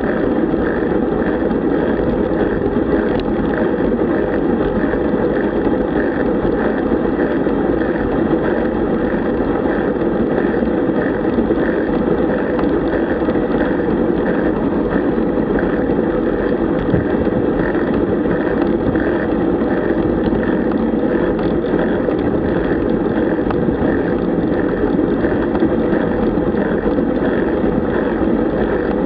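Steady wind rush on the bike-mounted camera's microphone and road tyre noise from a road bicycle riding in a group at about 30 km/h.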